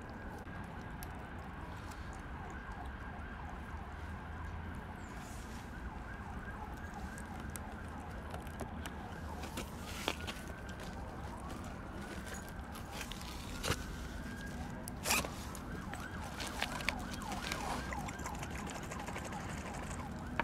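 Cats chewing raw meat, with scattered sharp clicks. Under it a siren wails, rising and falling in pitch.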